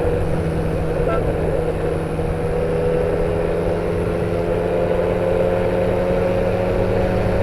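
Powered parachute's engine and propeller running steadily in flight, the drone slowly rising a little in pitch.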